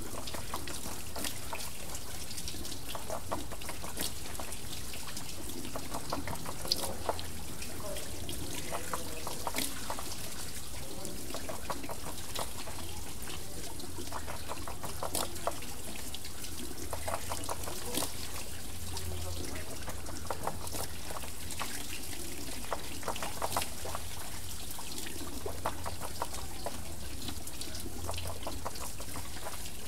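Water trickling and pouring off a water wheel, a steady run of water broken by frequent small splashes and drips.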